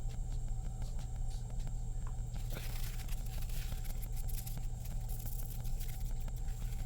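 A steady low hum runs throughout. From about two and a half seconds in until near the end, a soft, scratchy rubbing sound rises over it.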